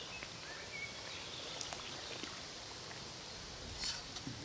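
Steady outdoor background noise with a few faint bird chirps about half a second in, and a brief sharp sound near the end.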